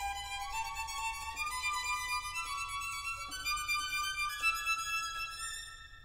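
Background music: a slow melody of long held notes climbing gradually, fading away near the end.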